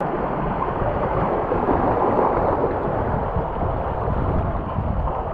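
Shallow creek rushing over a rocky riffle: a steady, dense rush of water close to the microphone.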